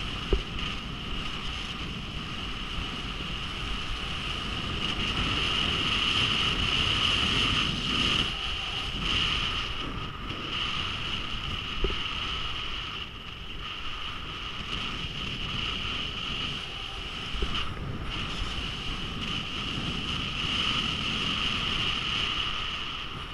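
Skis sliding on packed snow with wind rushing over the microphone: a steady hissing rush that grows louder and dips several times. There are a few brief sharp clicks along the way.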